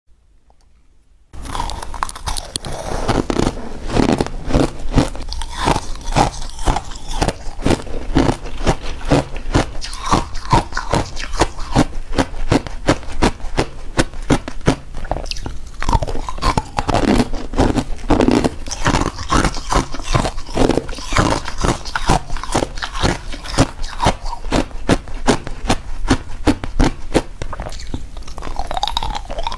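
Crushed ice being bitten and chewed right at a clip-on microphone: rapid, dense crunching that starts about a second in and keeps going without a break.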